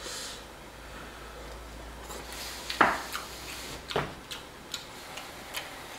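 Chopsticks and tableware clinking against bowls and the hot pot: a few scattered sharp clicks, the loudest about three seconds in and another at four, then lighter ticks.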